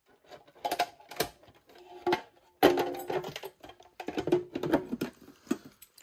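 Clear plastic protective cover over a fire alarm pull station being handled and shut: a run of irregular plastic clicks, knocks and rattles, loudest about two and a half seconds in.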